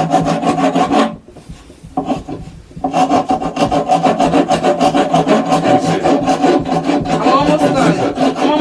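Small benchtop band saw cutting a wooden workpiece fed by hand: a steady rasping cut over the machine's hum. It breaks off about a second in and picks up again a second or two later.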